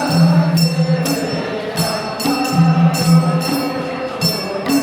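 Traditional Gurung dance music: a jingling percussion beat at about two strokes a second over a low, sustained melody line.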